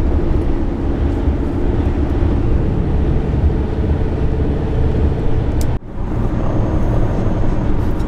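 Steady road noise inside a van moving at highway speed: low tyre and engine rumble, with a sudden brief dropout a little before six seconds in.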